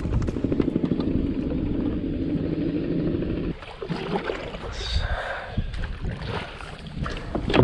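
Kayak underway on its drive, a steady low drone that cuts off abruptly about three and a half seconds in, followed by light knocks and rustles of gear on the hull.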